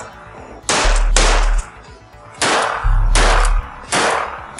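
Shotgun shots, about five in quick irregular succession, each a sharp crack with a long echoing tail, over background music with a heavy bass beat.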